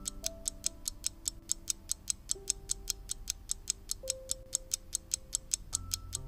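Countdown-timer ticking sound effect, clock-like, about four ticks a second, marking the seconds left to answer. Soft background music with long held notes plays under it.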